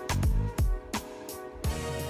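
Background music with a steady drum beat and held instrumental tones.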